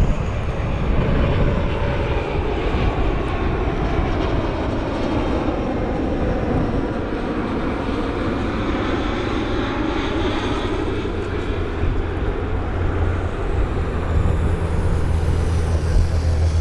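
Jet engines of a Boeing 777 on final approach to land: a steady rushing noise with slowly gliding tones through the middle, and a low hum joining near the end.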